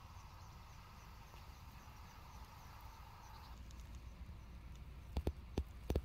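Wind buffeting the microphone in an open field of black wheat, a steady low rumble over a soft hiss. A faint high chirping repeats about four times a second through the first half. Near the end come a few sharp knocks close to the microphone.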